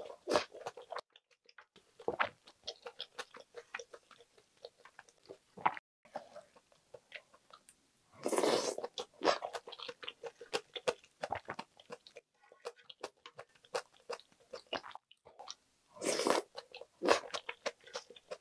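Close-miked chewing of budae-jjigae stew and rice: many short wet mouth clicks and smacks, with two longer, louder bursts about halfway through and near the end.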